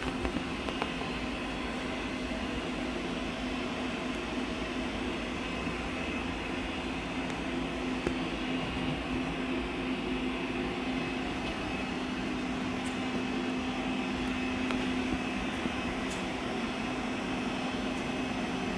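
Machine running steadily: an even mechanical hum with one constant tone that does not change in pitch or level.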